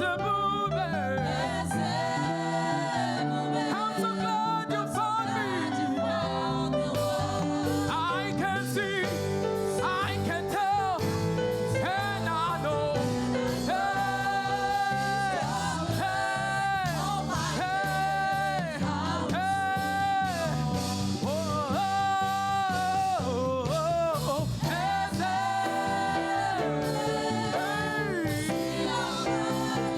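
Gospel praise music: sung vocals over steady instrumental accompaniment, with long held, wavering notes.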